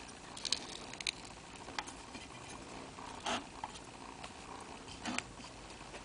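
Seldon Bailey patent plane's cam-lock lever and iron being handled: a few sharp metal clicks in the first second or so, then two short scraping sounds as the parts are worked loose.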